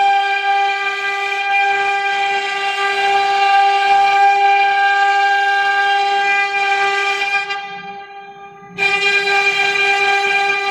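CNC router's spindle motor running with a steady high whine. The sound falls away about eight seconds in and comes back suddenly about a second later.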